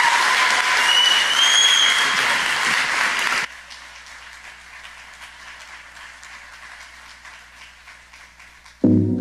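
Audience applause, with a rising whistle about a second in, cutting off abruptly about three and a half seconds in and leaving only faint scattered sound. Music starts suddenly near the end.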